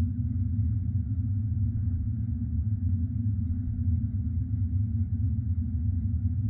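Steady low rumbling drone, even throughout, with no beat, tune or separate events.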